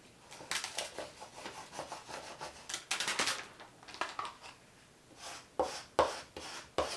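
Plastic scraper tool and hands rubbing over transfer tape and vinyl on a parchment-paper backing, with rustling as the plastic sheets are slid and smoothed. A few sharp clicks come near the end.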